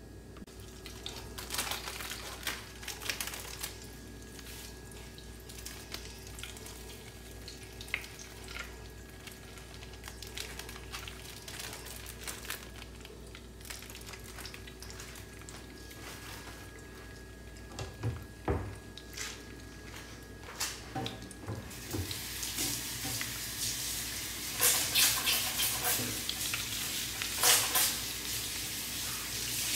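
Curry powder frying in hot oil in a cast-iron pan: scattered crackles and a few low thuds, then from about two-thirds of the way in a louder steady sizzle with sharp pops near the end.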